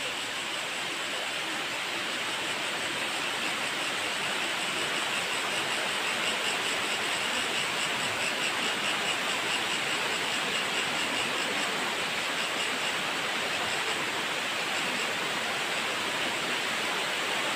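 Broad horsetail waterfall pouring over rock into a pool: a steady rushing hiss that grows a little louder over the first few seconds.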